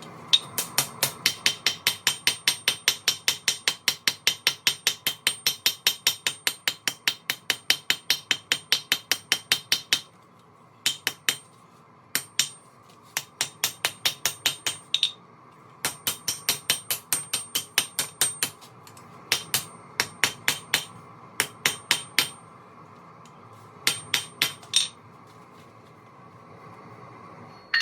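Hand hammer striking hot spring steel on an anvil, each blow ringing. The blows come fast and even, about four a second, for the first ten seconds, then in shorter bursts with pauses between. A steady rush from the propane forge burner runs beneath.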